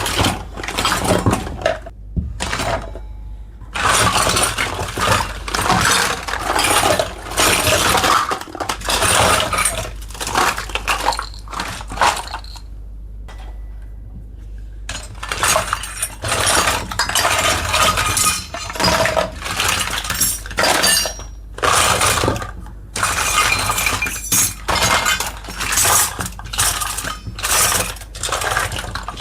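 Hands unboxing a miniature toy kitchen set: packaging rustling and small toy pieces clinking as they are handled. It comes in irregular bursts, with two short pauses.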